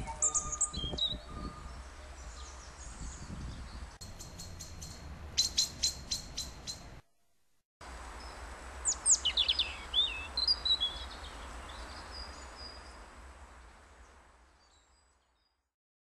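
Small songbirds chirping and calling: short high calls, then a quick run of about six repeated notes midway, then more falling calls after a brief cut-out. The sound fades out near the end.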